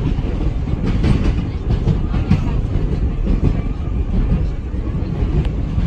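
Vintage BMT Standard subway car running along the track, heard from inside at its front window: a steady low rumble with wheels clacking irregularly over rail joints and switches.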